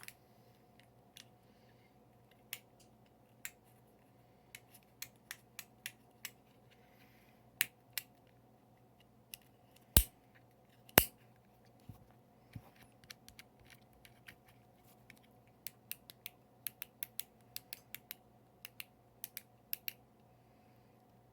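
Scattered sharp clicks and taps from small plastic fidget toys being handled and worked, coming in loose clusters, with two much louder clicks about ten and eleven seconds in.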